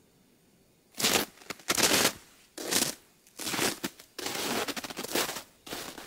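Footsteps crunching on frozen snow crust: about six uneven steps starting about a second in, one of them a longer scuffing crunch.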